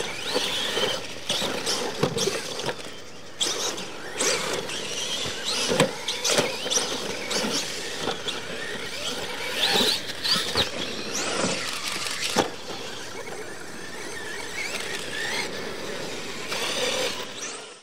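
Radio-controlled monster trucks racing on dirt, their electric motors whining and squealing, rising and falling in pitch as the throttles are worked, with repeated bursts of tyre and drivetrain noise.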